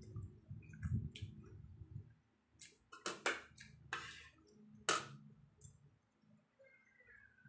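A handful of sharp clicks and knocks, about five of them, the loudest about five seconds in, after a low rumble of handling noise in the first two seconds.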